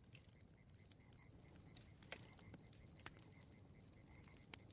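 Faint crackling of a wood bonfire: scattered soft pops and snaps, a few more of them in the middle second or two.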